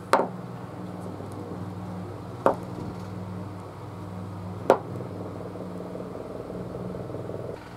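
Three sharp wooden knocks, about two seconds apart, as turned wooden balls are set down on a wooden saw table. A steady low hum runs under them.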